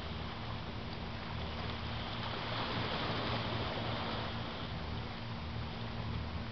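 Small waves washing onto a sandy shore among rocks, a steady surf wash, with wind rumbling on the microphone.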